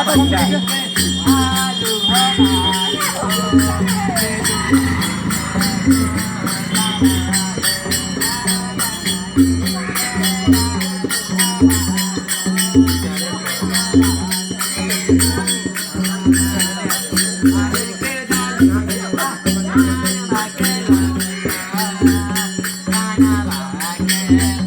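Traditional devotional music: a steady low drum beat under continuous jingling rattle, with wavering voices or a melody over it.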